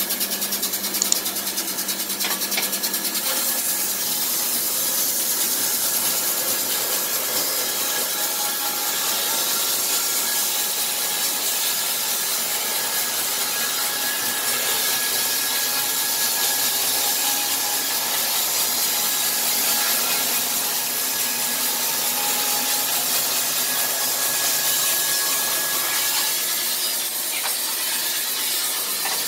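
Wood-Mizer LT15 portable band sawmill running, its band blade cutting along a log with a steady sawing noise.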